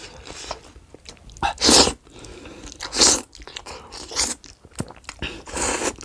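Close-up eating of chicken noodles by hand: wet chewing and small mouth clicks, with three louder slurps of noodles.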